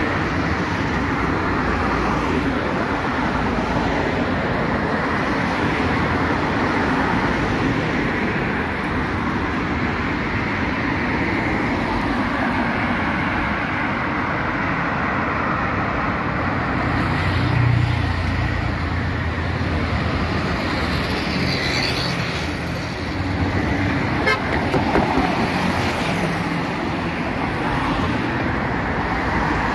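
Road traffic passing: steady engine and tyre noise, with car horns sounding now and then. A louder vehicle passes close about 17 seconds in.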